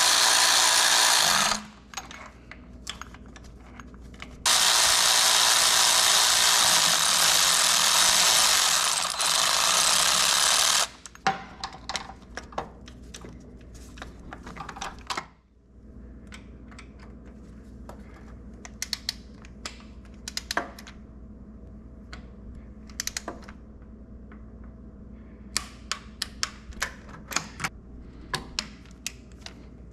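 Cordless ratchet running in two bursts, a short one and then a longer one of several seconds, spinning the starter mounting bolts down snug. After that comes a run of sharp ratchet clicks from a hand torque wrench tightening the bolts, growing thicker near the end.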